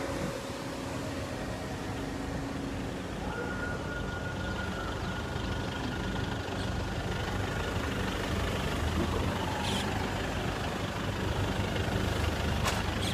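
Vehicle engines running with a steady low rumble that grows a little louder toward the end, with a faint high steady tone for a few seconds in the middle and a couple of short clicks near the end.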